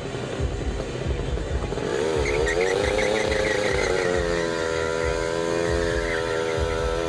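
Drag-racing motorcycle engine revved up about two seconds in, its pitch wavering at first and then held high and steady.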